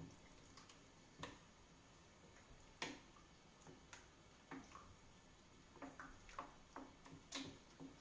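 Faint, irregular clicks and light knocks of a utensil against a pan as a thick filling mixture is stirred.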